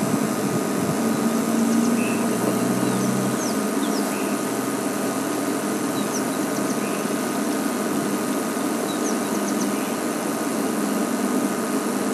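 Game-drive vehicle's engine idling steadily. Short, faint, high bird chirps come and go over it.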